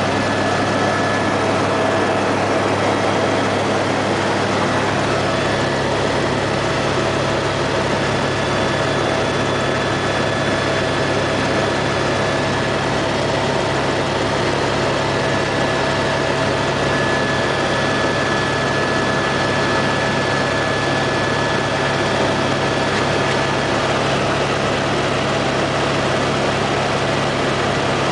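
Helicopter in steady flight heard from inside the cabin: a loud, unchanging drone of engine and rotor, with a low hum and a few steady whining tones above it.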